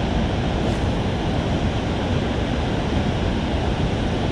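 Steady rush of water pouring through the open spillway gates of a dam and churning the tailwater below.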